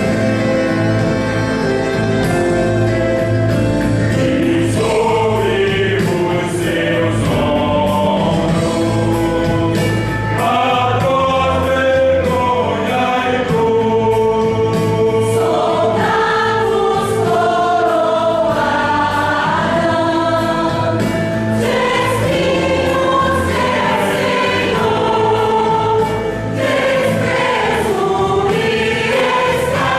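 Choir singing a Christian song with instrumental accompaniment: sustained low bass notes and light percussion under the voices.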